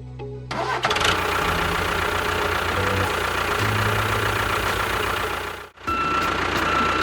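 Engine running with a fast, even chugging beat, breaking off briefly about six seconds in and then starting again with a thin whine over it.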